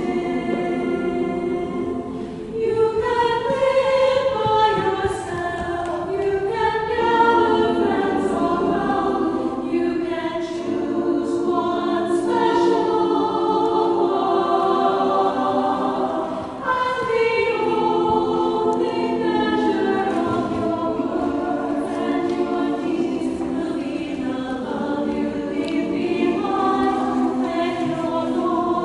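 Women's chorus singing a lullaby in several-part harmony, with long held chords and brief breaths between phrases.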